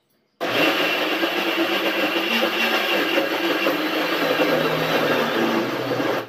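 Electric mixer grinder running, grinding soaked urad dal for batter. The motor switches on suddenly about half a second in, runs steadily and loudly, and cuts off just before the end.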